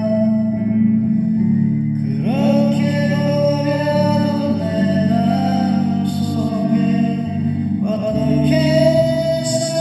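Korean popular song music: held chords under a melody line. New phrases enter about two seconds in and again about eight seconds in.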